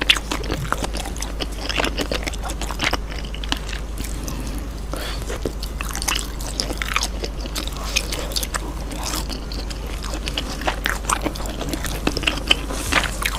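Close-miked chewing and biting of grilled cheese: many short wet mouth clicks and smacks, over a steady low hum.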